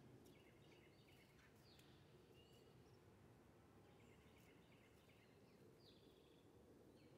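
Faint, scattered short bird chirps and calls over a steady low background rumble.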